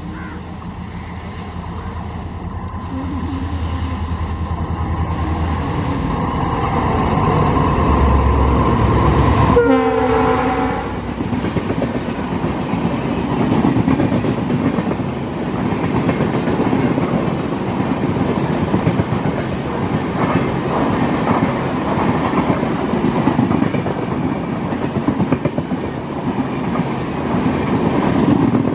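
Train drawn by an Indian Railways WAP-7 electric locomotive growing louder as it approaches, with one horn blast about a second long roughly a third of the way in. LHB passenger coaches then rush past at speed with rhythmic wheel clatter over the rail joints.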